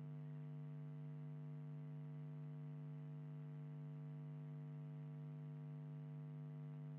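Steady low electrical mains hum, one unchanging tone with several overtones, picked up by the recording setup.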